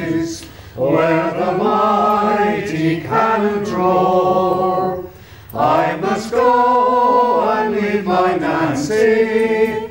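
A choir singing a sea-shanty-style folk ballad unaccompanied, in long held notes, with two short breaks between phrases: one just after the start and one about halfway through.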